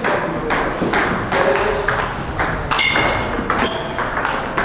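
Table tennis ball clicking off the rubber bats and the table during a rally, with a brief high squeak about three seconds in.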